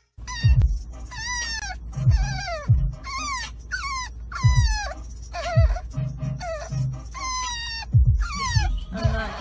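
French bulldog puppy whining and crying in a string of short, high cries that fall in pitch, roughly one a second, over a low steady rumble inside a car.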